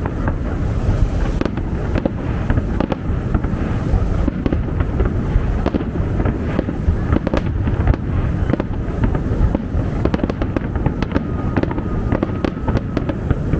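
Aerial fireworks display: a dense, continuous run of bangs from many shells bursting close together, over a heavy low rumble.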